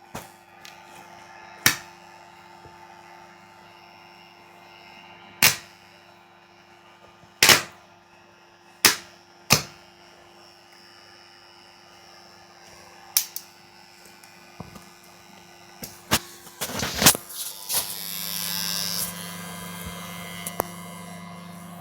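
Homemade arc welder built from two microwave oven transformers: a steady hum with about nine sharp, separate cracks as the arc is struck and breaks off, then, near the end, a sustained crackling arc with a stronger hum.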